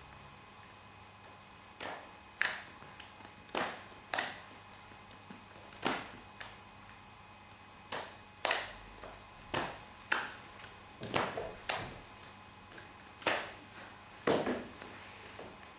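An irregular series of about a dozen sharp finger snaps, each a crisp click with a short ring, spaced from about half a second to two seconds apart.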